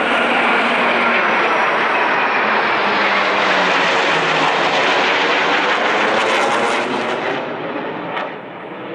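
Military aircraft flying low overhead in a flypast: a loud, steady engine roar with a slowly falling pitch, fading away after about seven seconds.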